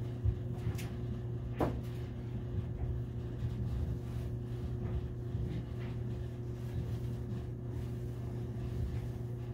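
A steady low hum with a couple of sharp knocks near the start, as a bottle is set down and a cloth tarp is handled.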